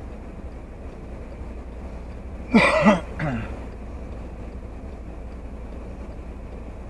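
Steady low rumble inside a stopped car's cabin. About two and a half seconds in there is a short, loud voice utterance of a couple of syllables.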